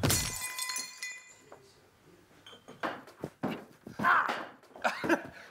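A man crashing off a table onto a wooden floor: one heavy thud, with tableware clattering and metal clinking and ringing for about a second and a half after. A few short grunting vocal sounds follow near the middle and end.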